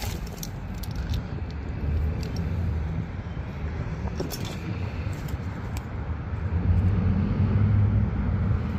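Small plastic toy parts clicking and clinking against each other as they are picked through by hand in a cardboard box, over a steady low rumble that grows louder near the end.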